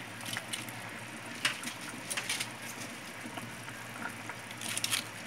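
Cabbage leaves being dropped by hand into a pot of stew, giving a few short, crisp rustles and crackles, loudest near the end, over a low steady hum.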